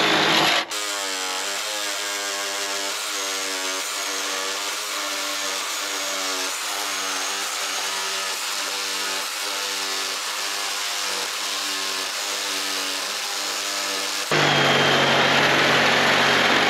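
A Ryobi cordless reciprocating saw running as it cuts into the grille and front panel of a truck. It buzzes loudly for the first moment and again near the end. In between it settles into a steadier, quieter pitched drone that dips in a regular rhythm about twice a second.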